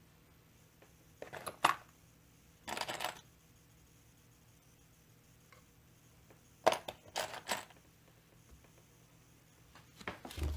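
Small metal parts and hand tools clinking and clattering as they are picked up and handled on a workbench, in four short bursts with quiet between them.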